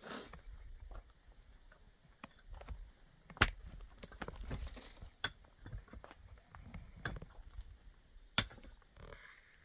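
Irregular scattered knocks and clicks, two of them sharper and louder, about three and a half seconds in and near the end, with short rustling noise between them.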